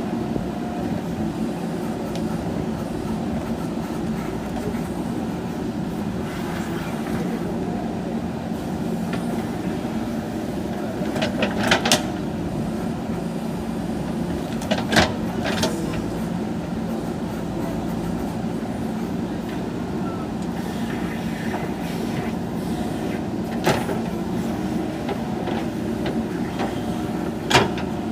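JCB backhoe loader's diesel engine running steadily under working load, with a few sharp knocks or clanks from the machine's work, the loudest a pair about twelve seconds in and a single one about fifteen seconds in.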